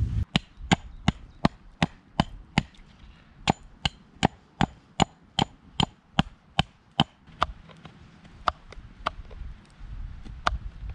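Wood being chopped with a blade: a steady run of sharp blows, about two to three a second, pausing briefly twice.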